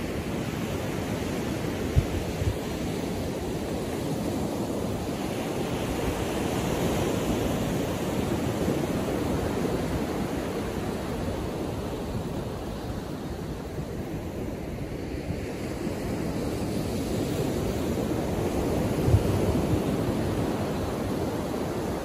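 Ocean surf: small waves breaking and washing up a sandy beach in a continuous wash. It swells twice, with a couple of brief low thumps.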